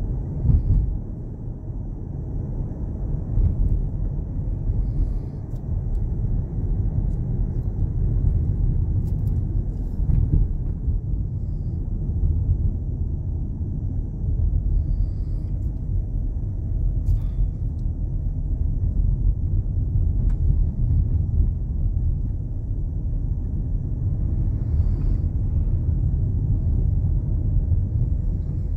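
Car driving along, heard from inside the cabin: a steady low rumble of engine and tyre road noise, with a few faint clicks.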